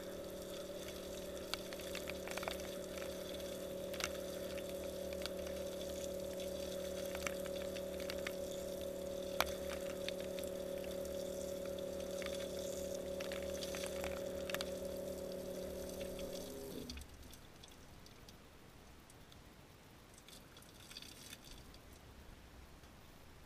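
Outdoor shower running: water spraying and splashing, with a steady hum of several tones in the water supply and scattered sharp ticks of drops. About 17 seconds in the water is shut off and the hum stops, leaving only faint drips.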